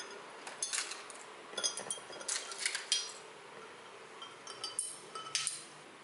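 Ice cubes and a metal straw clinking against a drinking glass of iced coffee, in three bursts of quick, ringing clinks: about half a second in, at two to three seconds, and near five seconds.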